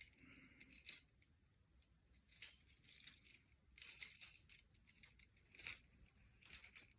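Keys jangling and clinking in short, scattered bursts as someone sorts through them looking for one particular key.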